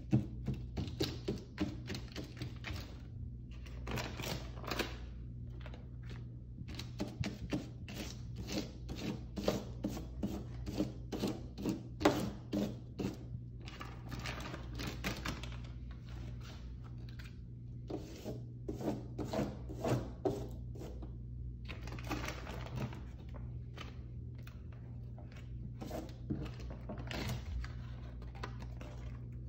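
Glossy magazine paper being pressed onto and peeled off a wet spray-painted surface: quick taps, crinkles and rustles in bursts with short pauses, over a steady low hum.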